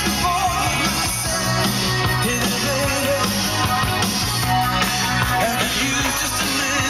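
A song with a singer and band playing over a car's factory FM radio, freshly tuned to a station.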